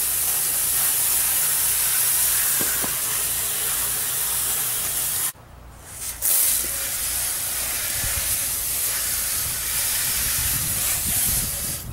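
Fine jets of water spraying upward from a homemade PVC-pipe underbody washer fed by a garden hose, a steady hiss. It drops out for about a second about five seconds in, then resumes.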